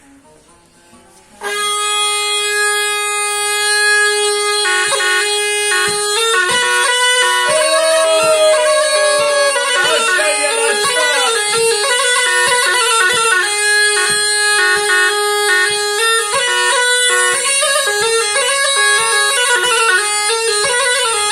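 Turkish tulum bagpipe starting up about a second in. It holds one long steady note, then from a few seconds in plays a fast, ornamented melody with many quick note breaks.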